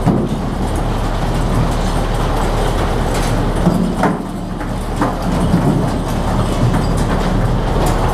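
Steady low running of a fishing boat's Yanmar diesel engine and deck machinery while a jigging line hauls mackerel up into a stainless steel chute, with a few sharp knocks about three, four and five seconds in.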